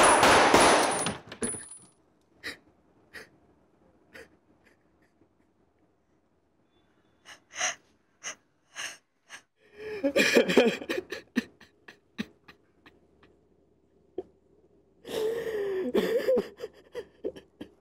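A pistol shot's loud blast dies away over the first second and a half, with a thin high ringing tone over it. A woman then gasps and sobs, breaking into crying about ten seconds in and again near the end.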